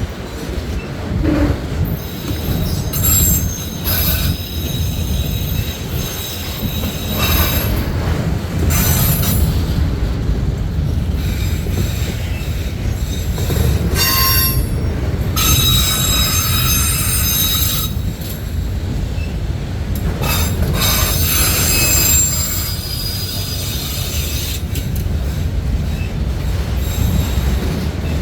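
Freight cars of a passing CSX freight train rolling by with a steady low rumble, broken by several spells of high-pitched steel wheel squeal that come and go.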